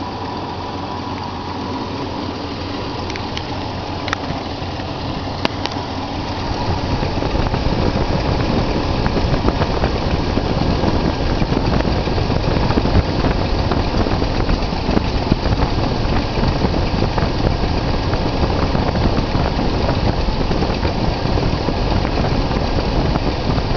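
1985 Dodge Ramcharger's carbureted V8 idling smoothly under the open hood, growing louder about eight seconds in. A few light clicks come about four to five seconds in.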